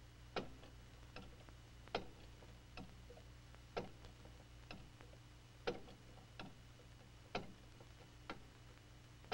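Pendulum clock ticking faintly, an evenly spaced tick-tock of about one beat a second, with louder and softer ticks alternating. A low steady hum lies underneath.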